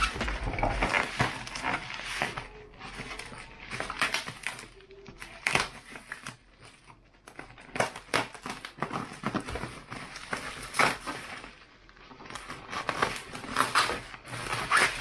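Plastic bubble wrap crinkling and crackling as a wrapped package is handled and cut open, with irregular crackles and sharper snaps coming in uneven clusters.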